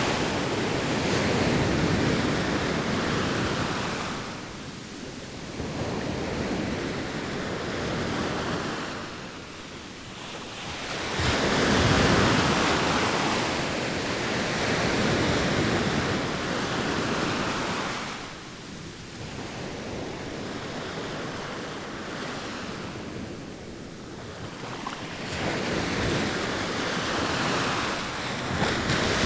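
Sea waves breaking and washing ashore, the surf noise rising and falling in slow surges every several seconds.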